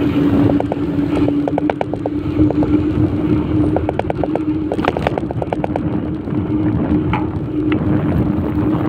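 A two-wheeler riding along a road: a steady hum under wind and road noise, with repeated bursts of rapid, even ticking.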